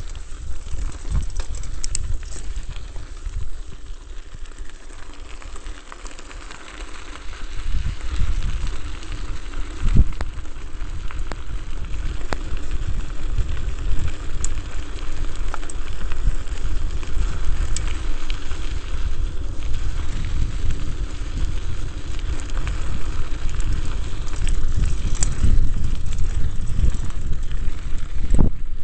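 Mountain bike running fast downhill: wind buffeting the microphone with a low rumble, and tyres crackling and rattling over gravel and broken pavement with scattered sharp clicks. It gets louder from about eight seconds in, with one hard knock near ten seconds.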